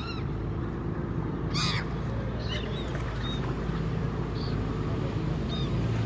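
Seagulls calling over the steady low drone of a ferry's engine. One loud call comes about a second and a half in, followed by a few fainter calls.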